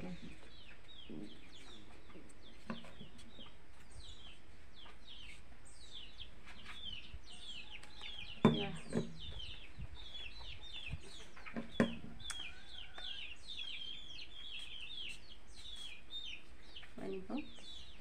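Chickens calling in a steady, dense run of short high falling chirps. Two sharp knocks come about eight and twelve seconds in.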